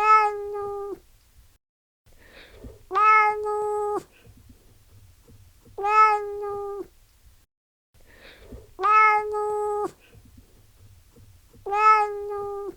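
Domestic cat meowing: five loud meows about three seconds apart, each about a second long and held at a steady pitch, the same call repeated each time.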